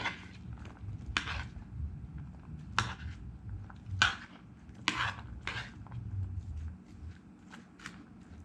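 A spoon stirring cubed venison and chopped onion in a soy–Worcestershire marinade in a bowl: irregular clinks and wet scrapes of the spoon against the bowl, with a few louder strokes.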